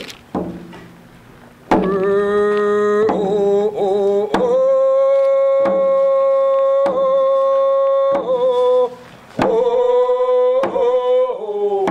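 Hide hand drums beaten in a slow, steady pulse, about one beat every second and a quarter, with a voice singing long held notes of an opening prayer song over them from about two seconds in. The singing breaks off briefly near the end and then resumes.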